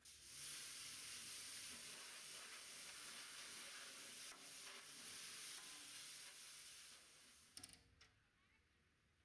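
Pressure-washer lance spraying a jet of water into the inside of an upturned plastic wheelie bin: a steady hiss that stops about seven and a half seconds in, followed by a few sharp clicks.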